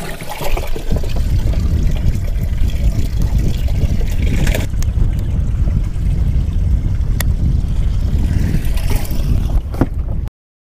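Steady, loud low rumble of wind on the microphone and water noise as a bass boat sits on the lake, with a couple of faint clicks. The sound cuts off abruptly near the end.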